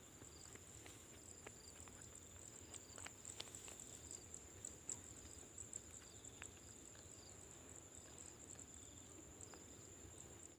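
Faint outdoor ambience: a steady high-pitched insect trill, with a few soft scattered ticks.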